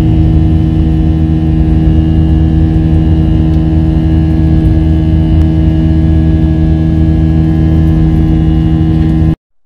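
Jet airliner cabin noise during the climb just after takeoff: a loud, steady engine drone with several steady humming tones over a low rumble. It cuts off abruptly near the end.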